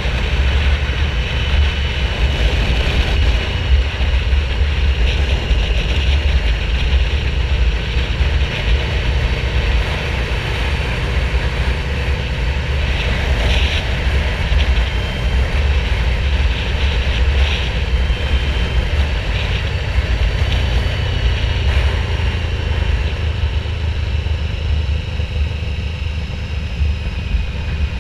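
Yamaha VMAX 1700 motorcycle riding along, its V4 engine running with a steady, deep rumble.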